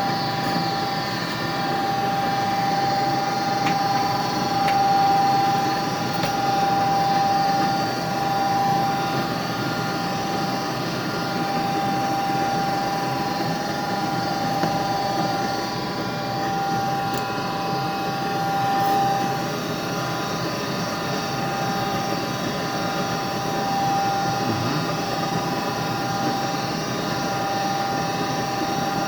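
Gas furnace running with its fan motor going steadily: a constant motor hum with a steady whine a little under 1 kHz and fainter higher tones over it.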